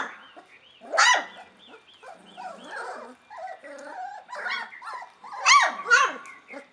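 Young puppies whining and yipping, with loud barks about a second in and twice near the end.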